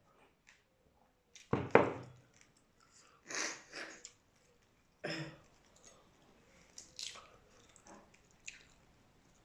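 Close-up chewing and wet mouth sounds of someone eating boiled shrimp with sauce, in separate irregular bouts, with a louder thump about a second and a half in.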